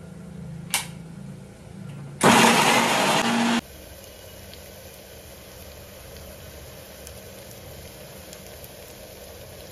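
A kitchen mixer grinder runs in one short, loud burst of about a second and a half, grinding ginger and garlic into paste, after a click about a second in. It is followed by a faint, steady sizzle of chopped onions sautéing in oil in a pressure cooker.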